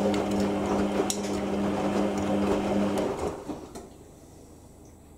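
Washing machine drum motor turning the drum through a deep-level rinse, with a steady hum and the wash of water and clothes. It stops about three seconds in as the drum pauses before reversing direction.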